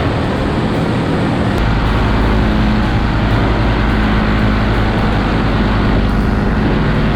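Paramotor engine and propeller running steadily, with a rushing noise over the engine note. About a second and a half in, the engine's low note grows stronger.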